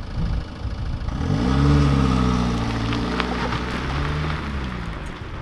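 Car engine revving and pulling away: the engine note climbs about a second in, holds, then rises briefly again before easing off.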